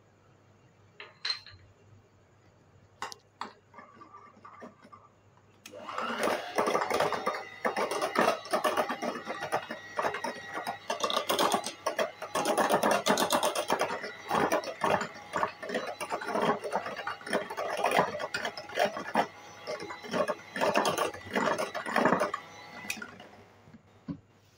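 Electric hand mixer running, its wire beaters whipping cream with dry milk powder in a glass bowl: a steady whine with a rapid rattle. It starts about six seconds in and stops a second or two before the end, after a few light taps.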